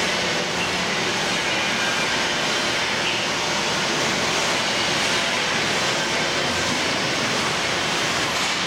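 Steady, even rushing noise with no distinct rhythm, tones or knocks: the constant background din of an industrial shop floor.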